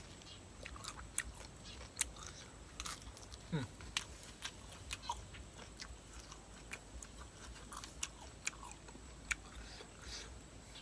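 Close-miked mouth chewing and crunching seafood, with irregular wet smacking clicks, and a brief falling murmur about three and a half seconds in.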